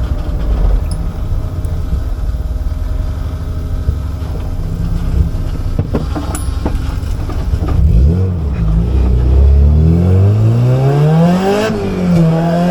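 Honda H22 four-cylinder engine in an EK Civic running at low revs, then revving up hard near the end, its pitch climbing steadily before falling back and holding.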